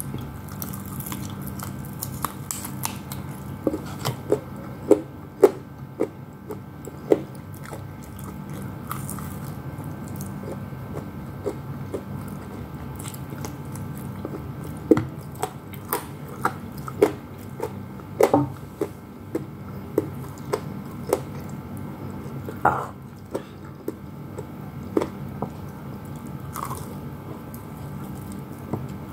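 Close-up chewing and biting into crispy fried chicken, with irregular sharp crunches of the coating that come in clusters between quieter chewing.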